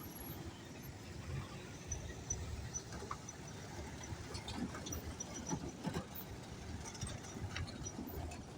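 Faint low rumble of road traffic, with a few small scattered clicks.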